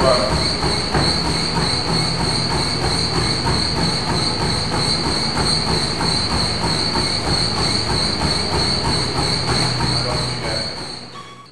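Treadmill running under a sprinting runner: a steady high-pitched whine from the machine with the regular beat of footfalls on the belt, fading out near the end.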